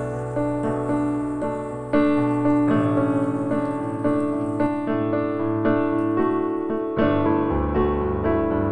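Background piano music: struck notes at an even pace over a held bass line.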